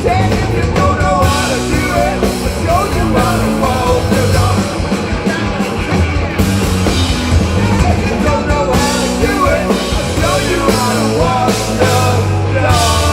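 Rock music with singing over a drum kit. Near the end the drums drop out and a chord is held.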